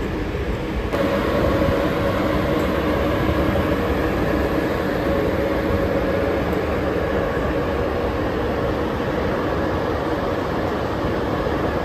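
Railway locomotive running steadily: an even rushing noise with a few held tones, stepping up louder about a second in.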